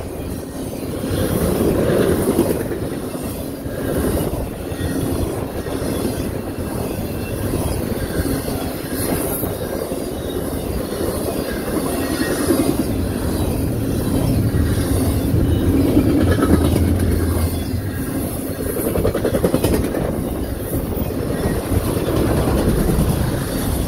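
Cars of a CSX intermodal freight train, double-stack containers and trailers on flatcars, rolling steadily past: a continuous rumble of steel wheels on the rails.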